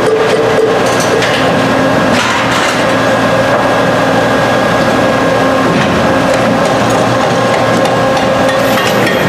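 Work at a hydraulic catalytic-converter guillotine: repeated knocks and clatter of metal shells and broken ceramic substrate over a steady machine hum.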